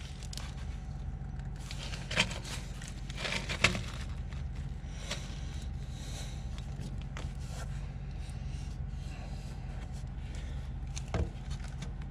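Plastic shower drain parts handled and fitted together: scattered clicks and knocks, two of them sharp, about two and three and a half seconds in, over a steady low hum.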